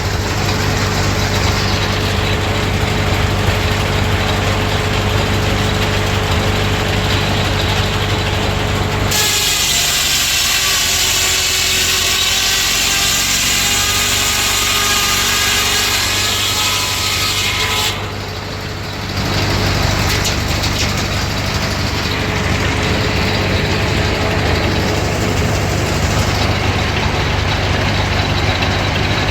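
1931 Ford Model A four-cylinder engine running steadily, belt-driving a circular sawmill. For about nine seconds in the middle, the engine hum gives way to the circular saw blade cutting wood with a high, wavering whine, then the engine is heard running again.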